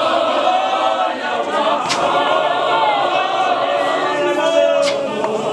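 A church choir of men and women singing a Zulu hymn in unison, unaccompanied. Two sharp knocks cut through the singing, about two seconds in and near the end.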